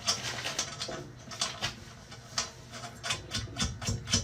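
Steel box-spring frame parts and bolts clinking and knocking against each other as the pieces are fitted together: an irregular run of short metallic clicks and taps.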